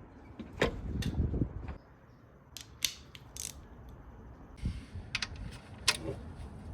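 Irregular sharp metallic clicks and knocks of hand tools being handled and worked, half a dozen or so spread out, with no steady rhythm.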